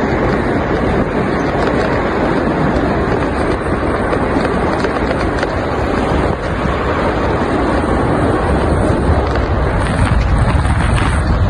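Steady rush of road and wind noise from riding in a moving vehicle, growing a little louder near the end.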